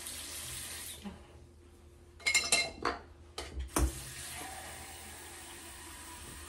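Small hard objects clinking and rattling with a bright metallic ring about two to three seconds in, then a single knock, after which a water tap runs steadily into a sink.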